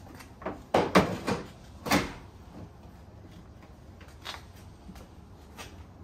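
A quick run of hard knocks and clunks about a second in, one more about two seconds in, then a few faint clicks.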